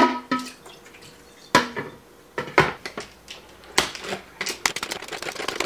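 A few sharp plastic knocks as the salad spinner's bowl and lid are handled. About four and a half seconds in, the pump-action salad spinner starts clicking rapidly as its basket spins.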